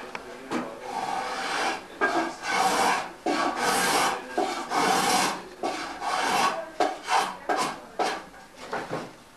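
A cooper's hand tool scraping and shaving wood in repeated strokes, each about a second long, growing shorter and quicker near the end.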